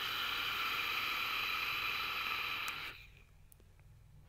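Mouth draw through a Hellvape Destiny RTA single-coil rebuildable tank atomizer fired at 55 watts: a steady rush of air through its airflow holes, a little turbulent with a faint whistly edge, lasting about three seconds and stopping abruptly.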